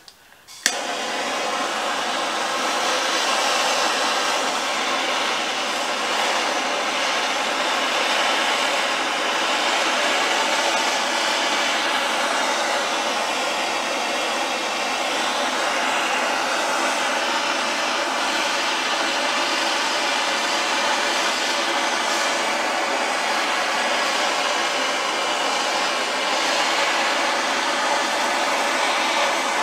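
Hand-held MAP gas torch lit with a sudden pop near the start, then burning with a steady hiss as its flame plays over the engine block.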